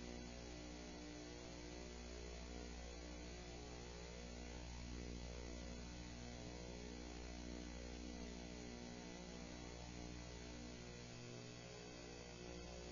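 Steady electrical mains hum with a buzz of overtones and a light hiss, unchanging throughout.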